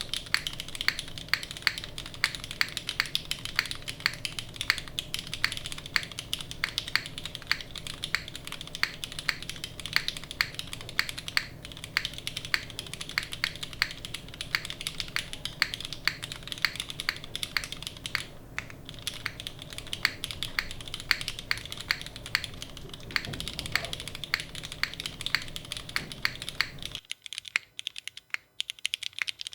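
Continuous fast typing on a Kohaku gasket-mounted custom mechanical keyboard with an aluminium plate, Cherry MX2A switches and GMK Norse keycaps: a steady stream of keystroke clacks.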